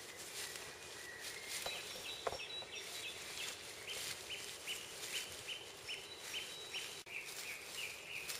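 A small songbird repeating a short high note over and over, about three times a second. Under it come the rustling of a wild boar foraging through bracken and a sharp crunch about two seconds in.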